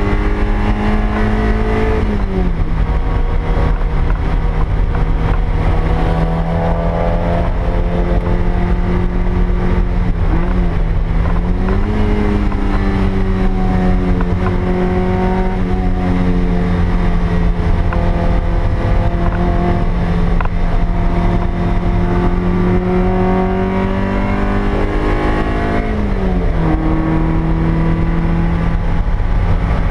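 The stock 1ZZ 1.8-litre four-cylinder engine of a 2000 Toyota MR2 Spyder, heard from inside the cabin under way, with a steady road and wind rumble underneath. The engine note falls briefly about two seconds in, dips and climbs back around eleven seconds, and falls again near the end.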